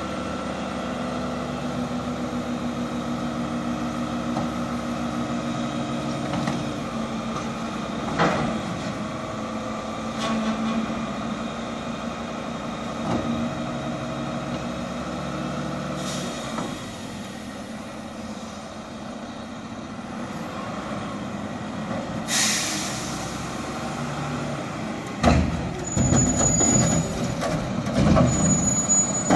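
Mack LEU garbage truck with a McNeilus front-loader body and Curotto Can: engine running steadily as it works the street, with a sharp air-brake hiss about three-quarters of the way through and a run of clanks and bangs near the end.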